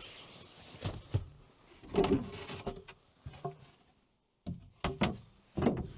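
Knocks and clatter of the cabin's folding sleeping-platform panels being handled and unfolded.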